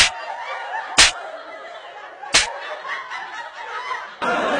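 Three sharp hand slaps on skin in a slapping game, about a second apart, with people snickering and laughing between them.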